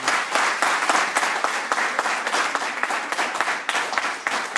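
Audience applauding, many hands clapping steadily and slowly easing off toward the end.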